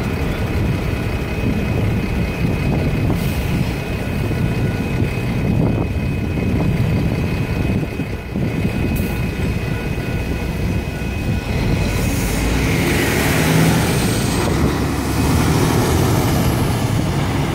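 Railroad crossing electronic bells ringing steadily over the low rumble of GP38-2 diesel locomotives. About twelve seconds in the bells stop as the gates lift, and road traffic, a tractor-trailer among it, takes over.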